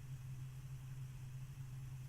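Room tone: a steady low hum with faint background hiss, and no other sound.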